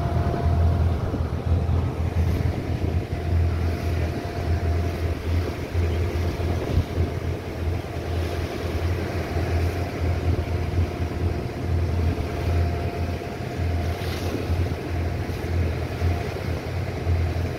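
Engine of a small wooden motorboat running steadily under way, a low drone, with wind buffeting the microphone.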